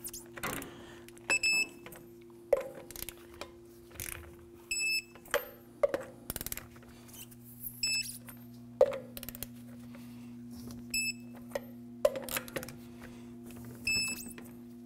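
Digital torque wrench beeping five times, about three seconds apart, as each lug nut reaches its 130 foot-pound setting. Each short, high beep follows a run of clicks and knocks from the wrench and socket, over a steady low hum.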